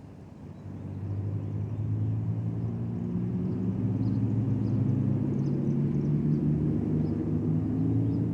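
A vehicle engine drones, growing louder about a second in and then holding steady, with its pitch edging slightly upward.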